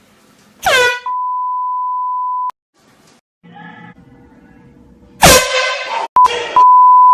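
A sudden loud blare about a second in, then a steady one-tone censor bleep lasting about a second and a half. After a few seconds of faint sound, another loud blare comes, followed by short censor bleeps cutting in and out.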